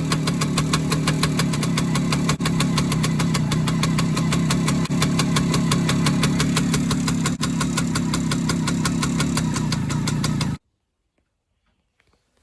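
Suzuki K125's single-cylinder two-stroke engine idling steadily, with an even exhaust beat; its muffler joint leaks exhaust. The sound cuts off suddenly about two seconds before the end.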